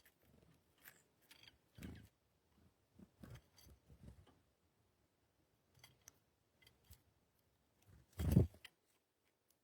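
Birds at a feeder: scattered light taps and clicks with soft thumps, and one louder thump about eight seconds in.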